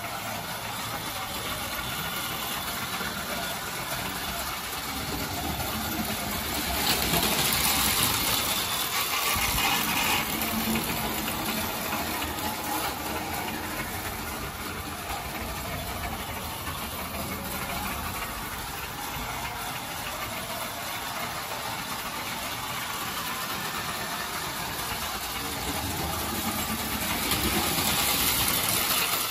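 Single-motor Lionel #42 tinplate model electric locomotive running on its track: a steady motor hum with the wheels rattling along the rails. It gets louder about seven seconds in and again near the end as it passes close.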